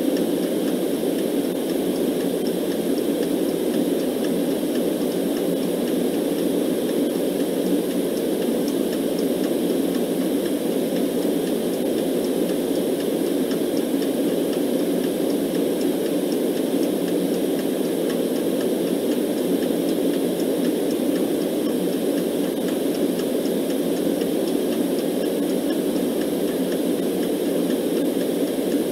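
Steady white noise, heaviest in a low, rushing band, with a clock ticking faintly over it.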